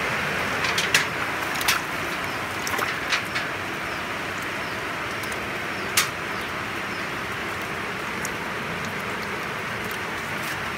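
Steady hiss of water, with a few sharp splashes and knocks in the first three seconds and a louder one about six seconds in, as live swamp eels move in a basin of muddy water.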